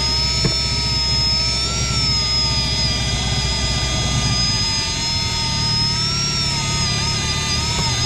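Boat motor running steadily, with a low rumble and a high whine that wavers slightly in pitch; the rumble eases about halfway through.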